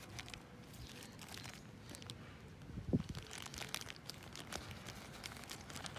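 Crinkling and rustling of small plastic-packaged fire-kit items being handled and packed, with scattered light clicks and one louder knock about three seconds in.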